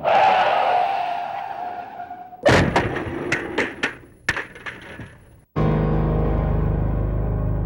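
A glass-shattering sound effect: after a noisy swell that fades over about two seconds, a sudden crash and several sharp, tinkling breaking impacts over about three seconds. About five and a half seconds in, sustained piano music begins.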